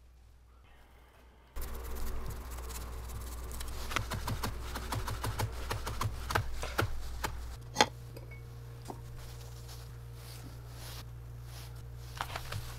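Santoku knife tapping quickly against a bamboo cutting board, cutting yuzu peel into thin strips. After that it goes quieter, with a steady low hum, one sharp click and a few light taps near the end.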